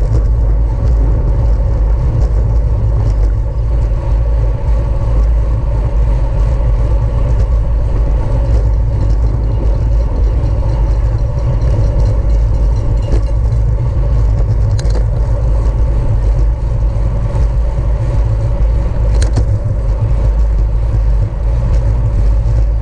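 Steady loud wind rush on the microphone of a camera riding along in a bicycle road race, mostly a deep rumble, with a faint steady hum above it.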